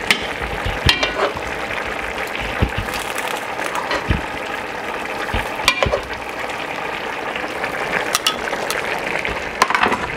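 Metal kitchen tongs clinking against pot rims several times as smoked turkey pieces are moved from one pot to another, over the steady bubbling and sizzle of a pot simmering on the stove.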